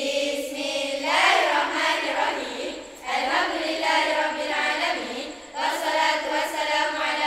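A group of girls singing together without accompaniment, in sustained phrases with two short breaks between them.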